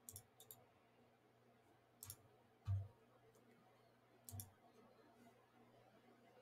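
A few separate computer mouse clicks in near quiet, with a louder dull thump about two and a half seconds in.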